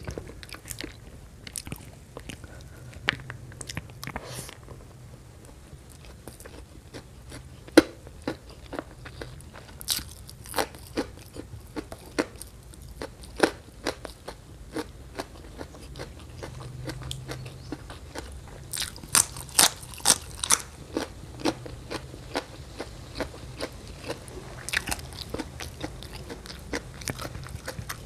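Close-up eating sounds: a person chewing spicy stir-fried shrimp and rice, with frequent sharp crunching clicks and a run of louder crunches about two-thirds of the way through.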